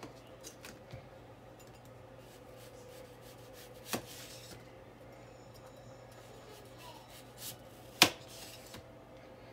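A kitchen knife slicing a whole onion into rings on a paper plate: soft cutting sounds, with two sharp knocks of the blade coming down through the onion, about four seconds in and about eight seconds in, the second the louder.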